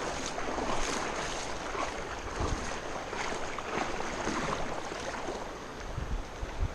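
Steady rush of moving river water, with some wind on the microphone.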